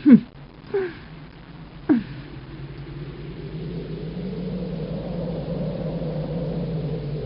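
Anime fight sound effects: three quick falling-pitch swishes in the first two seconds, then a steady low rumbling hum that slowly grows louder, the aura sound of a glowing character flying.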